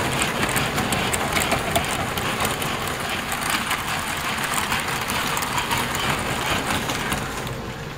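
American Flyer model freight train rolling past close by on metal track, a steady rumble with a dense rattle of rapid wheel clicks.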